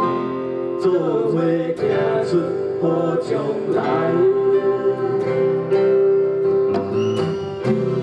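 Background music: a plucked-string accompaniment under a held, sung melody.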